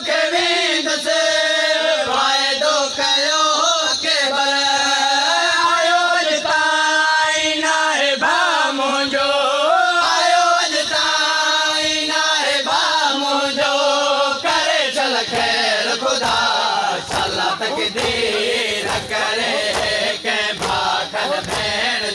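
A male noha reciter sings a long, drawn-out line of a Saraiki noha over the steady beat of mourners' chest-beating (matam). About fourteen seconds in, the solo voice gives way to the crowd chanting together in time with the beats.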